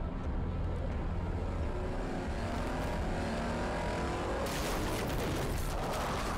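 Pontiac Aztek's engine revving hard, rising in pitch as the car accelerates, then a long loud skid of tyres through dirt from about four and a half seconds in.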